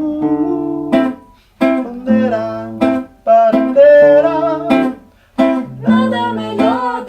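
Acoustic guitar playing chords in short phrases, each cut off into a brief silence, three times over.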